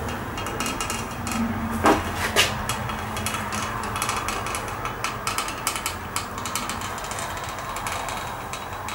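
Hand-held hot wire cutter drawn along a wooden template through foam: scratchy crackling and small clicks over a steady low hum, with two sharper knocks about two seconds in.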